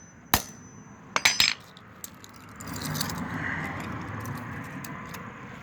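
A hammer striking toy cars with sharp metallic clinks: one blow, then a quick cluster of two or three about a second in, followed by a steady rough handling noise.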